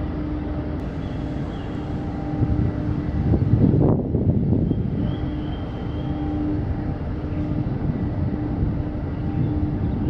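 Steady low mechanical drone with a humming tone, swelling into a louder rumble about three seconds in. Faint bird chirps sound above it.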